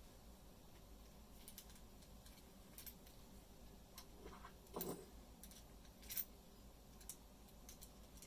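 Faint, scattered clicks and light taps of a padlock and small tools being handled and put away, with a louder knock about five seconds in and a sharp click about a second later.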